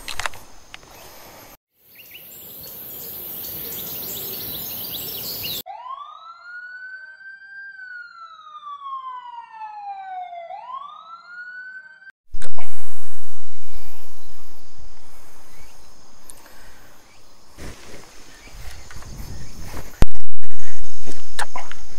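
Added sound effects: a whistle-like tone that rises, slides steadily down over a few seconds and rises again, then two sudden loud noisy hits that each fade out slowly.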